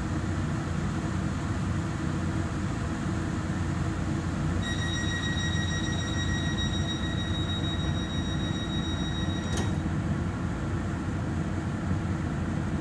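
Steady low hum of a Taiwan Railway EMU3000 electric multiple unit heard inside the passenger car while it stands at the station. About four seconds in, a steady high electronic beep sounds for about five seconds and cuts off with a sharp click.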